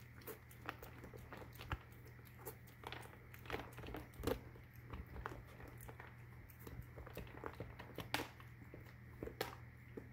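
Cat crunching dry treats with its head inside the treat canister: faint, irregular crisp crunches.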